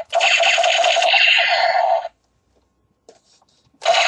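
Battery-powered toy M16A4 rifle playing its electronic machine-gun firing sound through its small speaker, a fast tinny rattle. It stops about two seconds in, is nearly silent for under two seconds, and starts firing again near the end.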